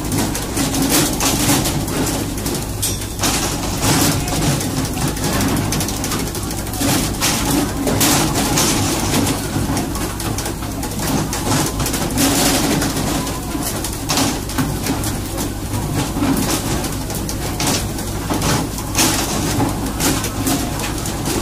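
Fishing boat's engine running with a steady drone under wind and sea spray, broken by frequent irregular knocks and slaps as tuna are jerked aboard on poles and hit the deck.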